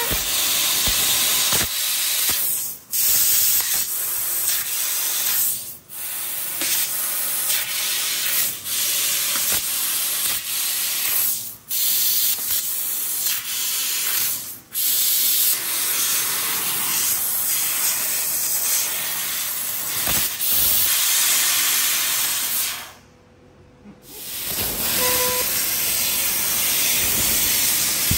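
CNC fiber laser cutting sheet metal: a steady hiss of assist gas jetting from the cutting nozzle. It cuts off for a moment four times and for about a second near the end, as the gas stops between cuts.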